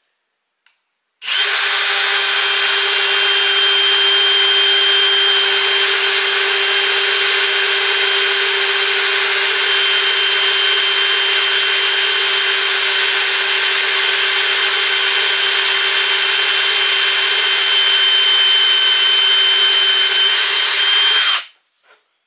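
Cordless drill running at a steady speed, boring a pilot hole with a 4 mm bit into a wooden batten. It starts about a second in, holds an even pitch for about twenty seconds, and stops just before the end.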